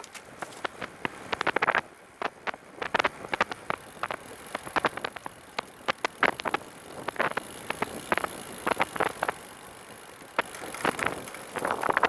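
A recumbent trike rolling along: a run of irregular clicks and rattles over a steady hiss.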